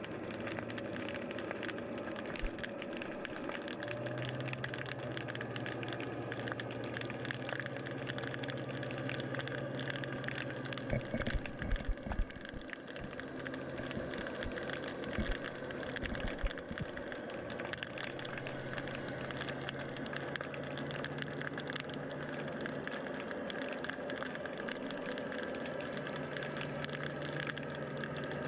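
Underwater hum of a motor heard through the water, its low tone stepping up and down in pitch a few times over a steady wash. A cluster of knocks comes about eleven seconds in, with a few more around fifteen seconds.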